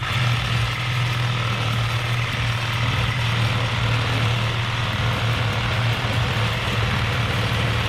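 Power tool motor running steadily under load, with a strong low hum and a dense hiss, cutting off abruptly at the end.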